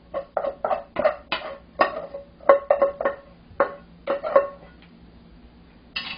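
Cooked rice being knocked out of a metal pot onto a ceramic plate: a quick run of sharp, ringing knocks of pot and utensil against plate and pot, then a pause and one louder knock near the end.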